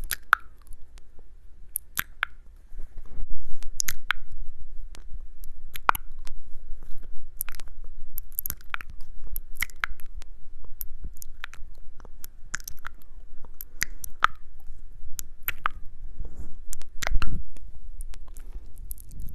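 Close-miked mukbang eating sounds: crunchy bites and chewing, with sharp crackles about once or twice a second and a heavier bite near the end.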